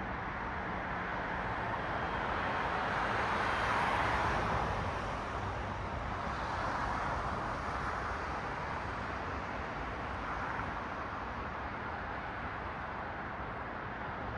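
Road traffic: cars passing on a city street, one swelling louder and fading away around four seconds in, another smaller pass near seven seconds, over a steady background of traffic noise.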